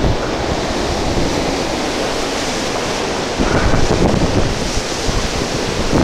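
Storm-force wind blowing hard and buffeting the microphone in a steady rush, growing louder about halfway through as a gust comes in.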